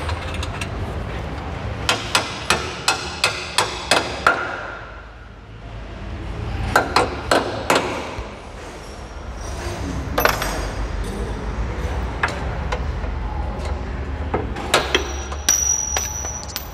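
Hammer blows on metal, knocking out the trailing-arm bushing bolt of a Hyundai ix35's rear suspension: a run of about eight sharp strikes, about three a second, then about four more a few seconds later and a few lighter knocks. A short high metallic ring sounds near the end.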